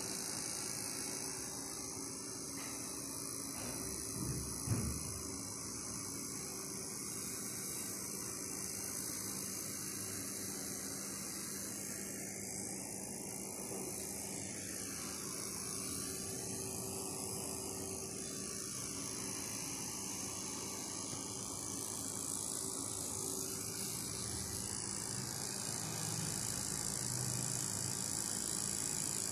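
A steady mechanical hum with a hiss over it, from a motor or fan, with a brief low thump about five seconds in.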